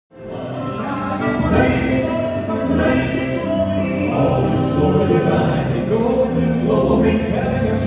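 Gospel music: a group of voices singing in harmony, cutting in suddenly from silence.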